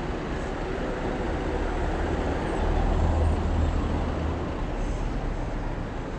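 Steady road traffic noise, with a vehicle's low rumble swelling about three seconds in and then easing.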